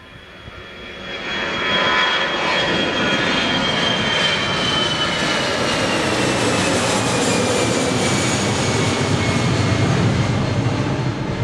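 Airliner engines passing close by: the roar builds over about a second to a loud, steady level, with a high whine that slowly drops in pitch.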